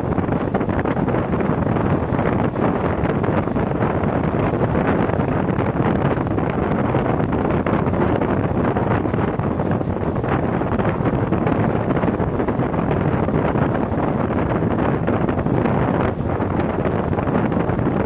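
Moving passenger express train heard from on board: the steady rush of its running noise with wind buffeting the microphone, level throughout apart from a brief dip near the end.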